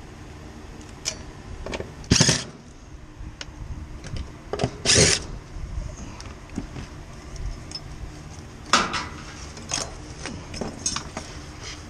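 Hand-work noises of clearing and handling parts: a string of short knocks and scraping bursts, the two loudest about two and five seconds in and another cluster near the nine-second mark, over a steady low hum.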